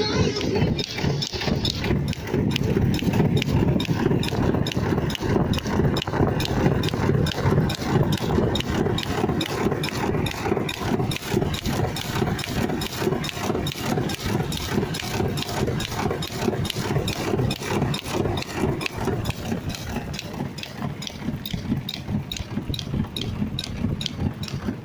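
BMW driving along a street, heard with the microphone held outside the window: engine and tyre noise with wind on the microphone, and a steady, even clicking about three times a second.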